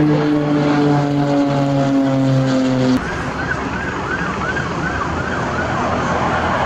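A light piston propeller plane flies overhead, its engine note steady and slowly falling in pitch as it passes. About three seconds in, the sound cuts off abruptly. Engine noise then continues with a high siren-like tone that rises and falls about two to three times a second.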